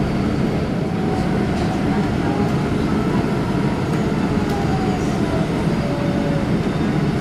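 A bus moving slowly in city traffic, heard from inside the passenger cabin: a steady low rumble of engine and road noise.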